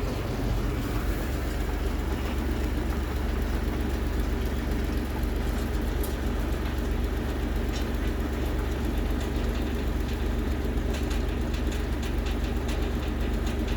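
Heavy diesel engine running steadily, a low even drone, with faint rapid clicking near the end.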